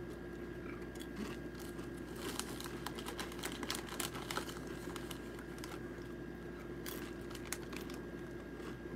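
Chewing crunchy Sun Chips, with the chip bag crinkling and many small scattered clicks and crackles over a steady hum.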